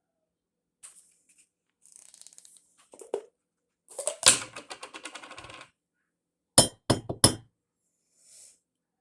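A spoon scraping honey out of a tub and clinking against the containers, with a longer scrape about halfway through and three sharp knocks shortly after.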